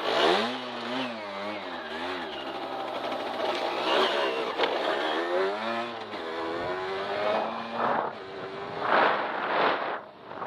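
Derbi Extreme 50cc two-stroke engine being ridden, its revs rising and falling over and over. Short rushes of noise come near the end.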